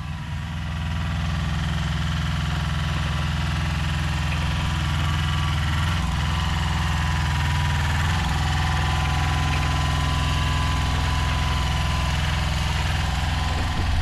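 Mini skid steer's two-cylinder Koop diesel engine running steadily.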